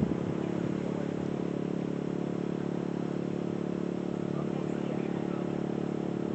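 Steady low hum of an engine running at idle, even in pitch and level.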